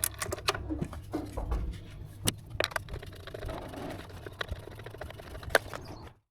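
Hand tools and metal parts clicking and scraping in irregular single knocks, a few sharper than the rest, while the bolts of a timing belt top cover are undone, over a steady low hum. The sound cuts off abruptly near the end.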